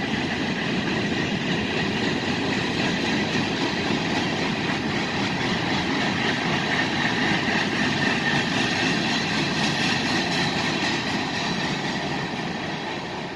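Freight train cars rolling past, a steady rumble and rattle of wheels on rail with a thin high tone over it. The sound dies away near the end as the last cars pass.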